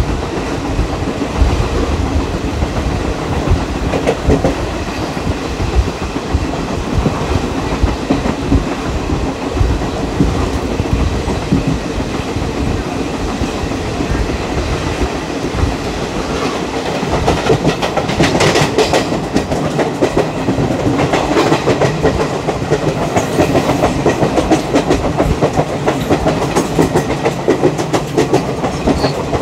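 Wheels of an ICF passenger coach clattering steadily over the rail joints while the train runs at speed. The clatter grows denser and sharper a little past halfway through.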